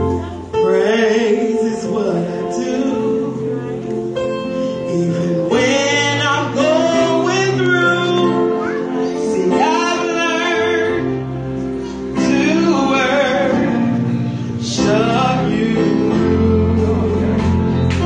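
A woman singing a gospel song solo into a handheld microphone, her voice bending and swelling with vibrato over sustained accompaniment chords.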